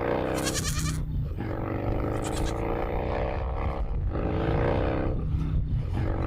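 Revtech 100 cubic inch V-twin motorcycle engine running after a start, not yet fully warmed up. Its note rises in pitch and drops back about four times.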